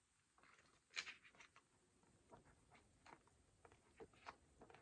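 Faint paper rustles and small ticks from the pages of a school planner being leafed through by hand, the clearest about a second in.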